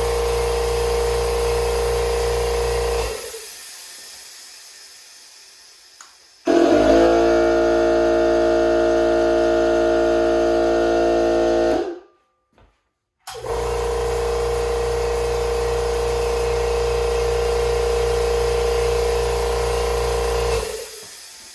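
Electric air compressors running in turn. A steady humming one winds down about three seconds in. A louder one with a higher, more pitched hum starts abruptly at about six and a half seconds and cuts off near twelve. After a brief silence, a steady hum like the first runs again until near the end.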